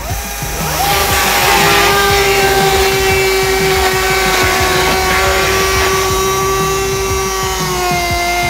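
Battery-powered DeWalt chainsaw running under load as it plunge-cuts into a shingled roof panel. The electric motor's whine rises as it spins up about half a second in, holds steady through the cut and dips slightly near the end.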